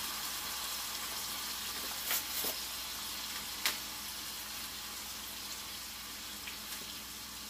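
Taco meat sizzling in a skillet, a steady hiss, with a few sharp clicks as it is stirred in the pan.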